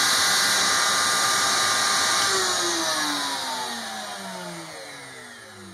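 Table-mounted wood router running at full speed with a steady high whine, then losing power about two seconds in and spinning down, its pitch falling and the sound fading away.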